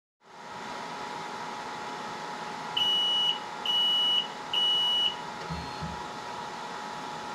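BGA rework station beeping three times, each beep about half a second long at one high pitch, over its steady fan hum, followed by two soft low thumps. The beeps come as the removal profile completes, just before the station turns on its vacuum and lifts the component.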